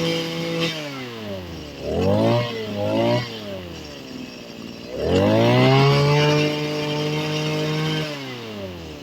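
Kioritz SRE260R brush cutter's small two-stroke engine being revved. It drops from a steady high speed to idle about a second in, blips twice, then revs up again and holds for about three seconds before falling back toward idle near the end. The seller lists it as making an abnormal noise.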